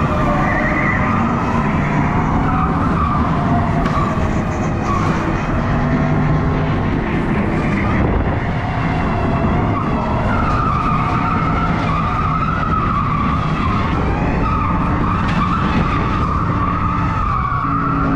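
Electric go-kart driven hard on a smooth indoor track, its tyres squealing in a wavering tone through the turns over the kart's rumbling running noise; the squeal is held longest through the second half.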